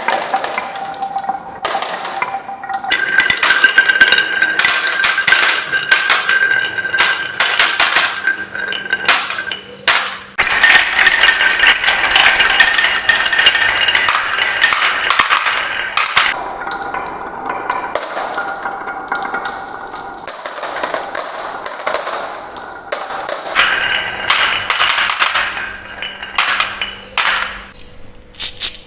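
Marbles rolling and clacking along a wooden marble run: a dense clatter of sharp clicks and knocks, with a steady high tone underneath in some stretches. The sound changes abruptly several times.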